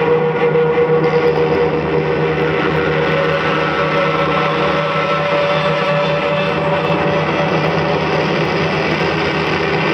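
Loud, steady electronic noise drone played live on keyboards and electronics: several long held tones over a thick, engine-like hum and hiss.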